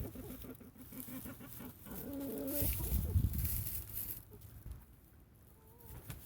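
Domestic chickens clucking in a series of short pitched calls, with a low rumble that swells in the middle.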